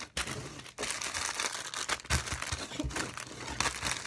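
Hands shuffling and mixing up items across a covered tabletop, making a steady crinkling and rustling.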